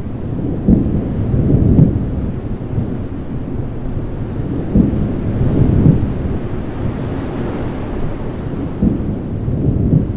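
Low rolling thunder rumbling in several slow swells, dropping away at the very end.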